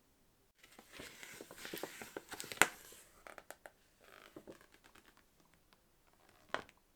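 Packaging crinkling and rustling as it is handled and opened, with a sharp click a little over two and a half seconds in and a run of small clicks after it. A softer rustle follows, then a single sharp tap near the end.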